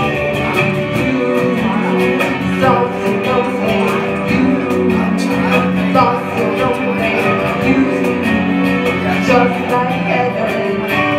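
Live band music: a woman singing with strummed acoustic guitar and electric keyboard, over a steady beat of percussion hits.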